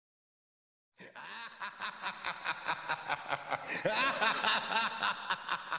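A person laughing in a long, unbroken run of rapid snickers, about five a second, starting suddenly about a second in.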